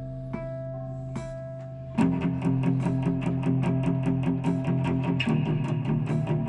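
Instrumental outro music: a few held notes, then about two seconds in a louder part with a fast, even pulse comes in.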